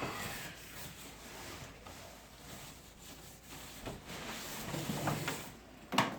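Packing materials and boxed parts being handled, with rubbing and sliding noises and a few light knocks. A sharp knock comes just before the end.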